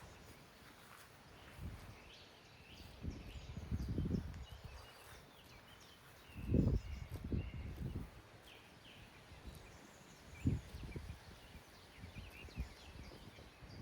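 Outdoor farm ambience with faint bird chirps throughout and irregular low thumps and rumbles, the loudest a few seconds in, around the middle and again later on.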